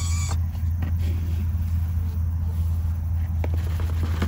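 A steady low mechanical hum, like an engine running, with a few light clicks and knocks of handling.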